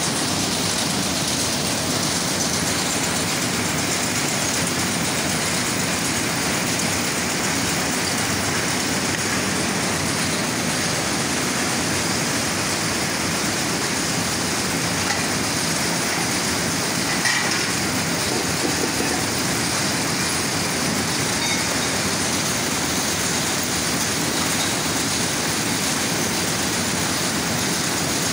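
Jute mill processing machinery running: a steady, even mechanical din, with one brief knock a little past the middle.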